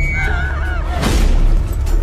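Horror trailer score and sound design: a low drone under a wavering, honk-like tone, cut by a heavy low impact with a whoosh about a second in.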